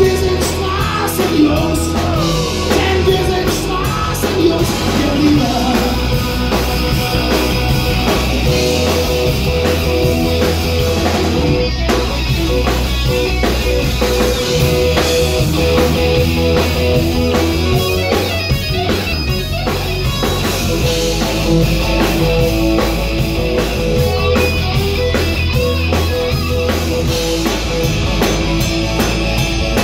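A live rock band playing: electric guitar, bass guitar, drum kit and keyboard, with a man singing lead vocals, strongest in the first few seconds.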